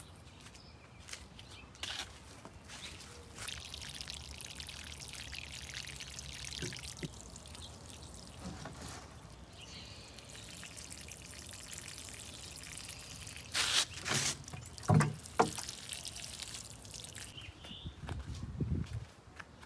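Water pouring and trickling as a steady hiss, with a few sharp knocks about two-thirds of the way through.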